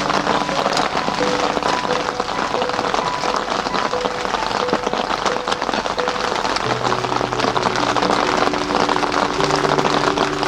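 Steady rain falling, with slow background music of soft held notes laid over it.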